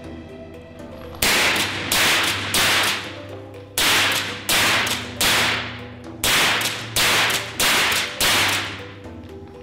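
Background music with sustained low synth tones and a sharp, noisy percussion hit about every 0.7 s, the hits coming in groups of three or four and each fading over about half a second.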